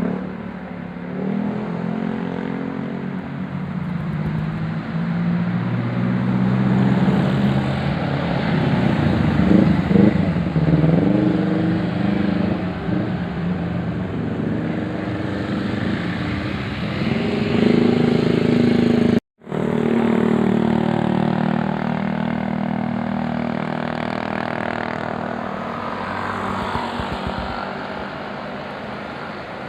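Tour bus engine running and revving as a bus passes, swelling in level, with a brief cut-out in the sound about two-thirds through.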